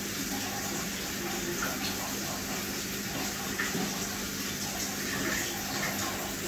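Aquarium water running steadily from the filter or pump, with a steady low hum and small splashes.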